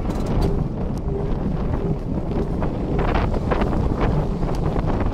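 Wind buffeting the microphone over the steady rumble of the 1898 Sydney electric tram C 29 running along the track. From about three seconds in, sharp clicks and rattles come thick and fast.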